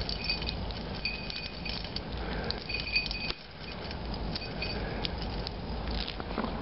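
An irregular run of light metallic pings and ticks as small white plastic pellets hit the steel can of a Fram oil filter, each hit ringing briefly at the same tinny pitch.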